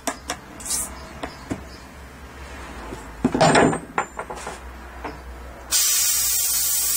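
Light metal taps and clicks on copper pipework, then a clatter as a small copper pipe fitting drops onto the wooden workbench about three and a half seconds in. Near the end a steady loud hiss starts.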